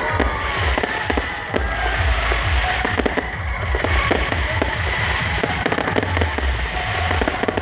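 Loud music with a heavy bass beat, riddled with many sharp cracks like firecrackers or a sound system driven to distortion.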